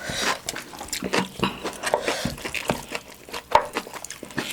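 Close, wet chewing and lip-smacking of people eating a saucy chicken-and-rice bowl, with irregular small clicks.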